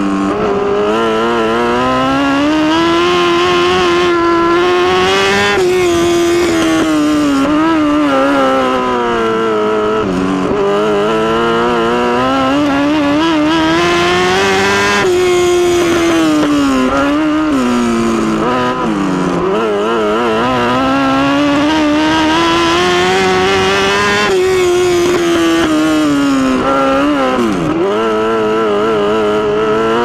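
1000cc motorcycle engine of a midget race car at racing speed, heard from onboard. Its pitch climbs and wavers, then drops sharply and recovers several times over.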